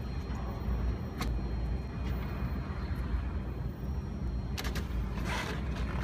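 Steady low rumble with a few light clicks and a short scrape near the end as a screwdriver works the terminal screws of a circuit breaker.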